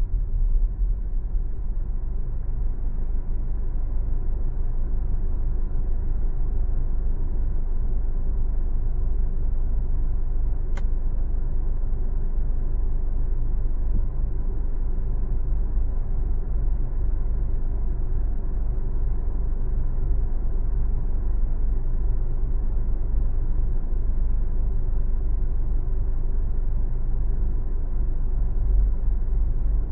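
A car driving along a city street: a steady low rumble of road and engine noise, with one faint click about eleven seconds in.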